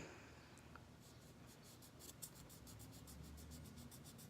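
Cotton swab scrubbing back and forth on an Apple Watch to work out the dirt: faint, quick scratchy strokes, about seven a second, starting about a second and a half in.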